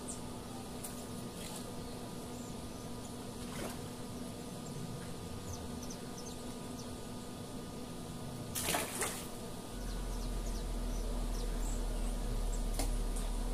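Quiet outdoor ambience with a faint steady hum and scattered small ticks; a short noisy burst a little before nine seconds in, then a low steady rumble from about ten seconds on.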